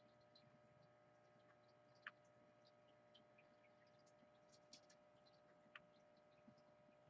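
Near silence: a faint steady electrical hum, with a few faint short ticks about two, four and a half and six seconds in.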